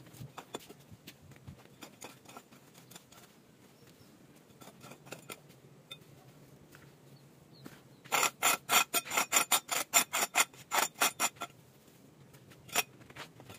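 Scattered small knocks and rustles of stones and soil being handled, then a fast run of sharp scraping strokes with a metallic ring, about six a second for some three seconds, like a metal trowel scraping stony ground, and one last strike shortly after.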